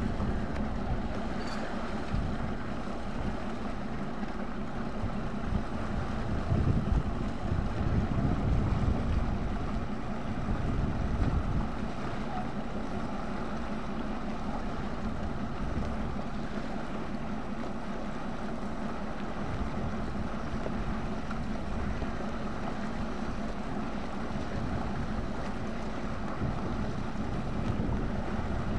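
Wind buffeting the microphone over the steady low drone of a police patrol launch's engine as it motors past on the water. The gusts are stronger for a few seconds around the middle.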